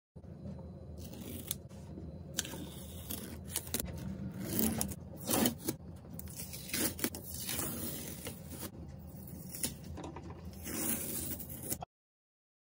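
Masking tape being peeled off the edges of a painted canvas, with uneven scratchy crackling and tearing that comes in bursts, loudest near the middle.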